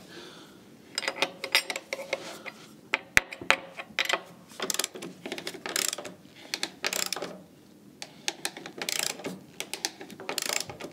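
Ratchet wrench clicking in short repeated bursts, about one a second, as a nut is tightened onto a bolt through a timber beam.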